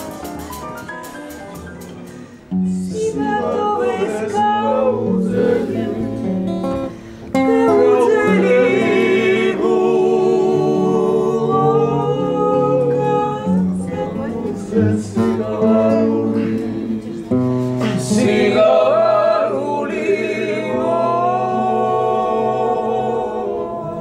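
Singing with guitar accompaniment. It starts about two and a half seconds in, after a quieter stretch of music fades, and the voice wavers in pitch on held notes.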